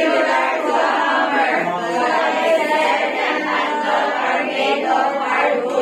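A class of students reading aloud together in unison, many voices chanting the words as one steady chorus.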